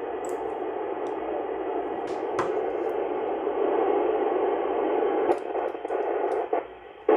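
Hiss of an FM radio receiving no signal: static from the Icom IC-9700 transceiver's speaker as it listens on the ISS downlink between calls. The hiss becomes choppy after about five seconds and drops away shortly before the end.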